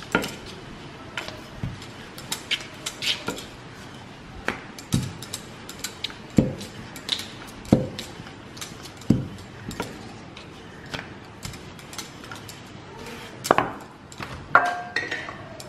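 Rolling pin rolling out chapati dough on a plastic chopping board: irregular light clicks and knocks as the pin is pushed back and forth, with a duller thud every second or so in the middle stretch.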